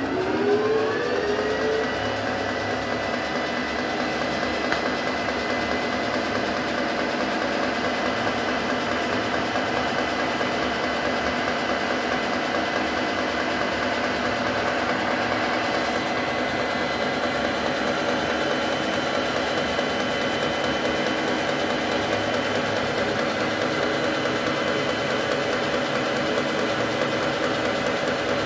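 Milling machine spindle whining up in pitch over the first two seconds or so, then running at a steady pitch. The end mill is cutting along the edge of a flat metal bar clamped in the vise.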